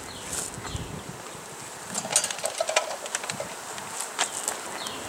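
Honeybees buzzing steadily over an open, crowded hive, with short wooden knocks and scrapes as frames are lifted and worked in the hive box, most of them a couple of seconds in.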